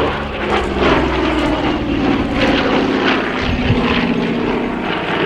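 Douglas A-26C Invader's twin Pratt & Whitney R-2800 radial piston engines droning steadily during a display pass, the pitch of the drone sinking slowly.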